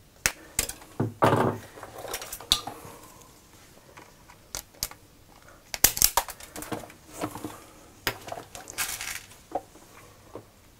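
Sharp clicks and clatter of hand tools and small metal parts being handled while fitting crimp ferrules to wire ends, with a few short scraping rustles.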